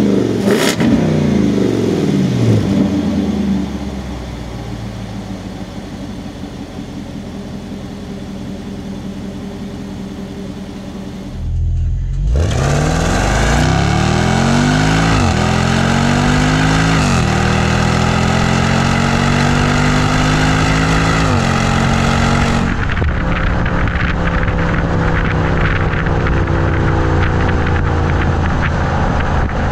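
Land Rover Defender 110's supercharged 5.0-litre V8 through its quad-tip exhaust. It falls from a rev blip near the start to a steady idle. Then, heard right at the tips on the move, it pulls hard with a rising note cut three times by upshifts, and winds down as the throttle is lifted.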